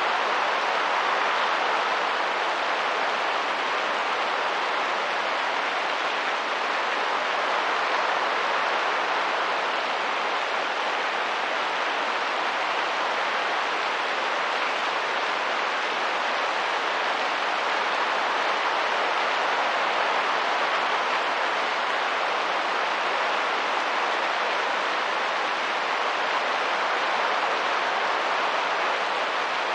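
Steady heavy rain: a constant, even hiss with no gusts rising or falling.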